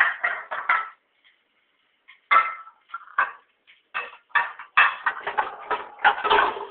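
Pots and pans clattering as they are moved about inside a lower kitchen cabinet: several clusters of knocks and clanks, the busiest in the second half.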